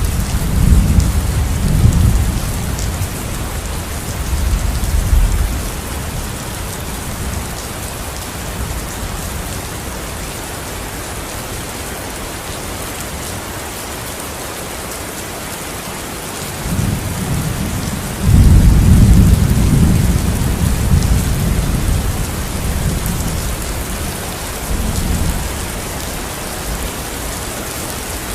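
Steady rain hissing throughout, with rolls of thunder: one rumbling away over the first few seconds, another coming in a little past halfway, loudest soon after it starts and dying off a few seconds before the end.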